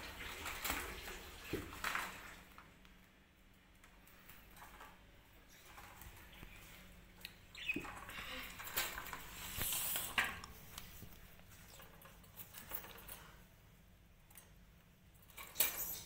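Faint, scattered light scratches, taps and rustles around a wire birdcage with a small parrot inside, with a brief high squeak about eight seconds in.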